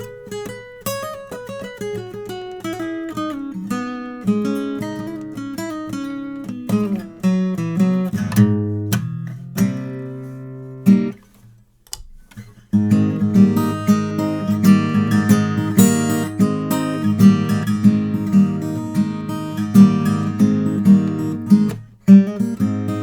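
Martin 00-28 Modern Deluxe acoustic guitar played solo, close-miked with no EQ or processing. Picked single-note melody first, then a ringing chord and a short pause about halfway, then fuller strummed playing.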